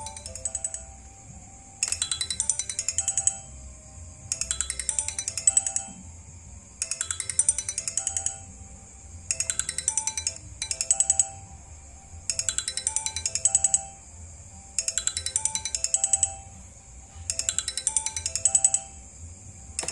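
Sony Ericsson mobile phone's incoming-call ringtone playing on repeat: bursts of rapid electronic trilling about every two and a half seconds, with a soft melody running between the bursts.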